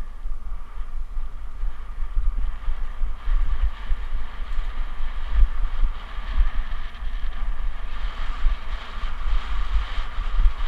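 Wind buffeting the microphone on a mountain bike riding downhill over grass, a gusty rumble throughout. Underneath is a steady faint whine from the bike itself.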